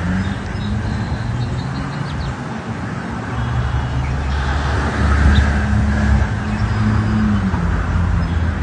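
A motor vehicle's engine running steadily with traffic noise, a low hum that grows a little louder about halfway through.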